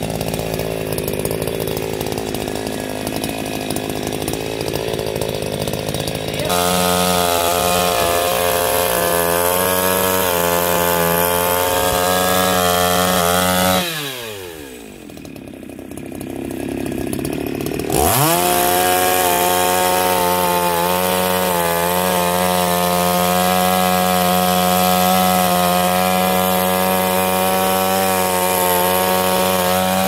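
Two-stroke petrol chainsaw sawing through a branch at high revs. About fourteen seconds in the throttle is let off and the engine sinks to a low idle for a few seconds, then it revs sharply back up and runs at full speed until the throttle drops again at the end.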